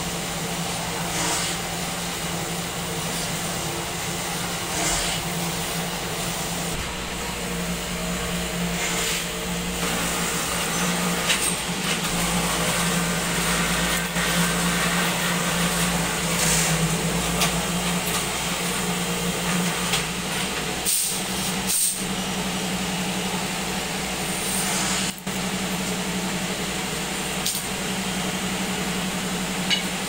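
A machine running steadily: a constant hum over a hiss, with a few short clicks.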